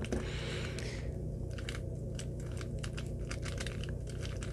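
MoYu GEO Cube, a 3x3 shape-mod twisty puzzle, having its plastic layers turned quickly by hand: an irregular run of short clicks and clacks.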